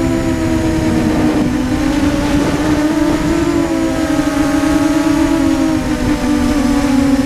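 Brushless motors and propellers of a BPQ250 mini H-frame FPV quadcopter in flight, picked up by the onboard GoPro. A steady, loud buzz of several close pitches that rise and fall slightly with throttle, over rough wind noise.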